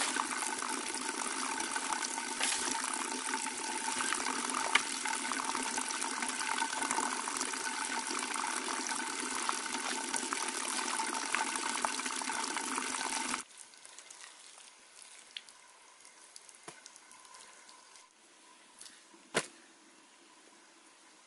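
Flowing water, a steady rushing that cuts off abruptly about 13 seconds in. After that it is much quieter, with a few faint ticks and one sharp knock near the end.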